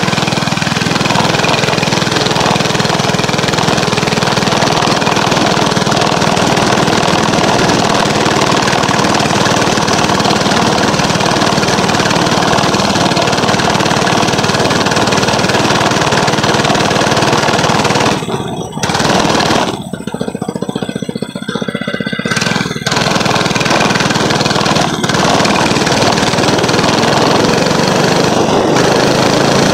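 Motorcycle engine running steadily while riding. It drops away briefly a few times about two-thirds of the way through.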